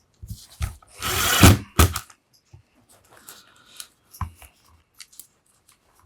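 Clicks, knocks and a short scraping rustle from handling screws and plastic housing parts while reassembling a cordless impact wrench. The loudest moment is a brief scraping rustle about a second in, followed by a knock.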